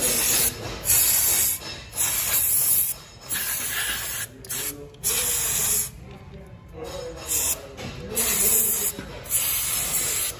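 Aerosol injector cleaner sprayed onto a motorcycle fuel pump and filter in repeated hissing bursts of about a second each, with short pauses between them, flushing out the dirt caught in the filter.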